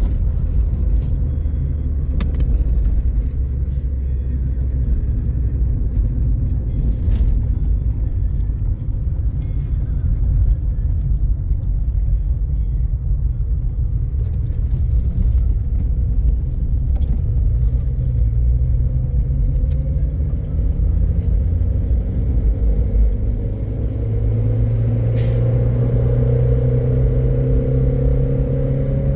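Steady low rumble of a motor vehicle running, with a few faint clicks. From about eighteen seconds in, a pitched engine note rises slowly, as when the vehicle picks up speed.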